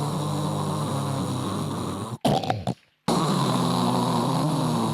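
Loud, drawn-out snoring done to sound like a motorcycle engine: a long rumbling snore, a short sharp snort about two seconds in, a brief gap, then another long snore.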